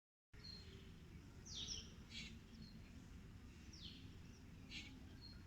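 Birds chirping: a few quick downward-sweeping chirps and short high notes every second or so, over a faint low rumble of background noise.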